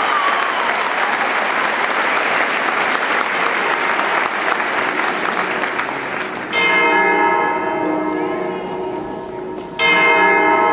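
Audience applauding. About six and a half seconds in, music starts with a ringing, bell-like chord that fades, and it is struck again near the end.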